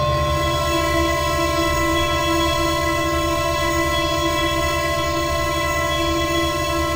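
A sustained electronic drone of several steady held tones over a low pulsing rumble, with a wavering mid tone that swells and fades.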